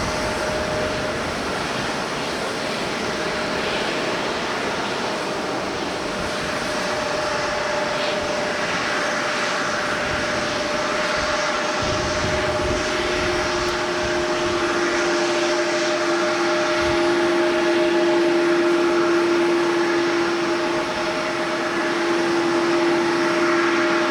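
An airliner's engines running steadily, a dense rushing noise with a steady whine throughout. A second, lower whine joins about halfway through and grows a little louder toward the end.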